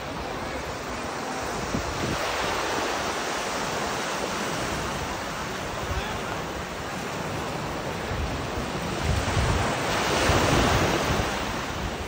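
Small waves breaking and washing up a sandy beach: a steady hiss of surf that swells louder about nine to eleven seconds in, with wind rumbling on the microphone.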